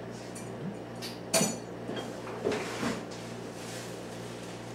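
A few knocks and clinks of objects being handled and set down, the sharpest about a second and a half in, over a steady low hum.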